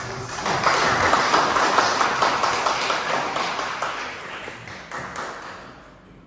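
Audience applause, many hands clapping at once, that dies away over a few seconds.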